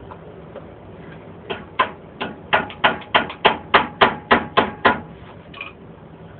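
About a dozen quick, sharp hammer blows, roughly three a second, beginning about a second and a half in and stopping near five seconds.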